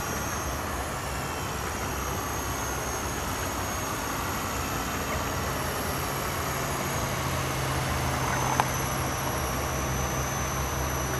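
Electric radio-controlled model helicopter in flight: a steady whir of the rotors with a thin, high motor whine over it. A single short click about eight and a half seconds in.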